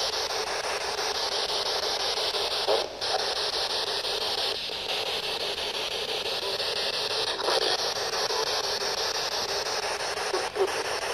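Spirit box scanning through radio frequencies: a steady hiss of radio static from its small speaker, broken by brief dropouts and jumps every few seconds as it sweeps.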